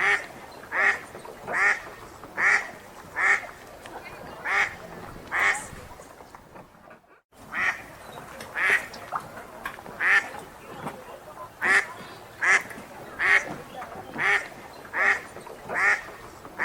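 Wild duck quacking in a steady run, a little over one quack a second, broken by a brief dropout about seven seconds in.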